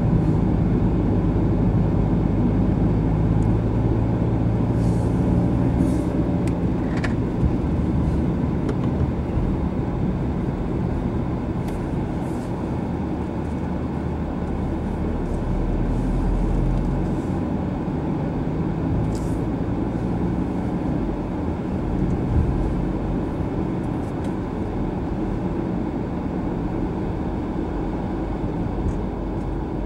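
Car engine and tyre noise heard inside the cabin: a steady low rumble whose engine note rises and falls a little as the car changes speed, with a few faint ticks.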